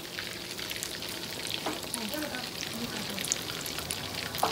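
Marinated chicken pieces deep-frying in hot oil in a steel pan: a steady sizzle full of small crackling pops, with one sharper pop near the end.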